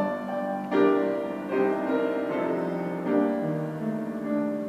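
Grand piano playing a short solo interlude: four chords struck a second or so apart, each left to ring and fade.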